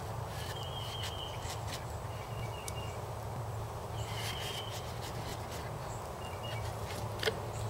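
A bird chirping briefly about every two seconds over a steady low hum.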